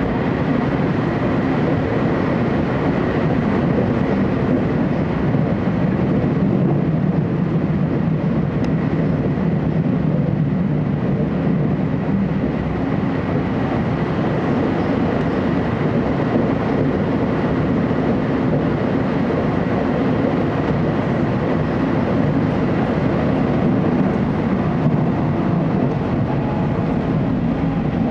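Steady running noise heard inside the carriage of a TEMU2000 Puyuma electric multiple unit travelling through the underground line, a dense low rumble with a faint high whine at first.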